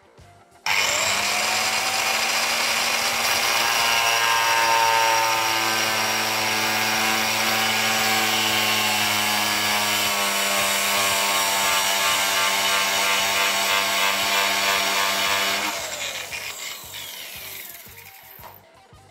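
Angle grinder with a cardboard cutting disc starting up and running at full speed, the disc grinding into a plastic pipe and throwing up dust. About 16 seconds in it is switched off and the motor's whine falls away as the disc spins down.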